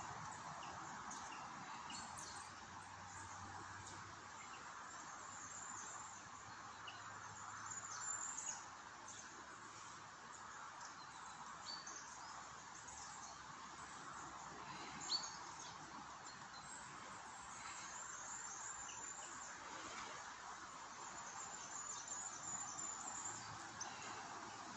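Faint woodland ambience: a steady soft hiss with scattered high, thin bird chirps and calls, one sharper chirp a little past the middle.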